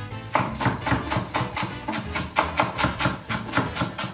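Chef's knife mincing leek on a wooden cutting board in quick, repeated chops, over background Latin music.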